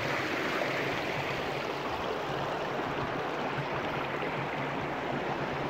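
Steady rush of a flowing creek, an even wash of water noise.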